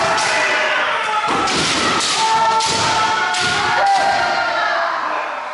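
Kendo sparring: several fencers' drawn-out kiai shouts overlap throughout, punctuated by repeated sharp thuds of bamboo shinai strikes and feet stamping on the wooden floor.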